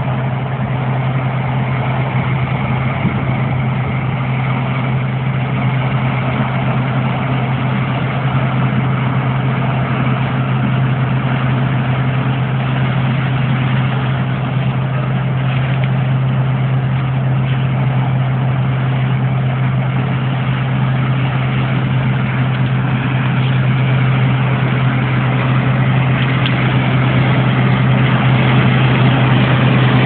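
Combine harvester running steadily as it harvests corn, its engine and threshing machinery making a constant hum that slowly grows louder as the machine draws closer.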